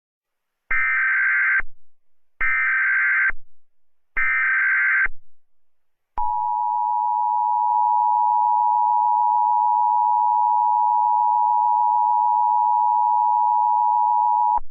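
Emergency Alert System alert tones: three short warbling bursts of the digital SAME header, each just under a second, followed by the steady two-tone attention signal held for about eight seconds. Together they mark the start of an emergency alert broadcast.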